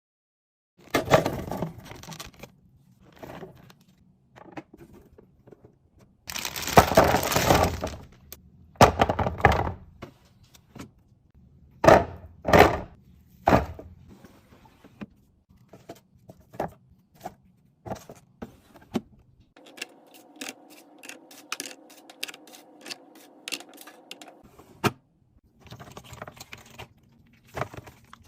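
Restocking handling sounds: containers and packages knocked, clinked and set down, with rustling, starting about a second in. A longer rush of noise comes about a quarter of the way in, and a steady hum runs for several seconds near the end, under quick clicks.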